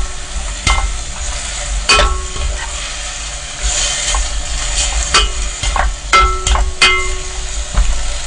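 Beef and soaked seaweed sizzling in a pot as they are stir-fried over low heat before any water goes in, with a spatula stirring and scraping. About seven knocks of the spatula against the pot ring briefly, most of them in the second half.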